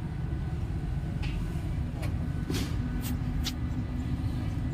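Diesel generator engine running with a steady low rumble. A few short hissing clicks come between about one and three and a half seconds in.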